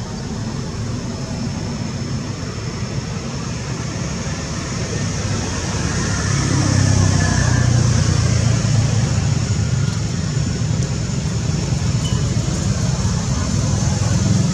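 Outdoor background noise: a steady low rumble that grows louder about halfway through and then holds, under a steady high hiss.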